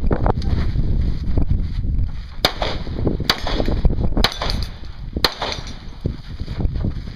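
Handgun fired four times, about a second apart, starting about two and a half seconds in, over steady low background noise.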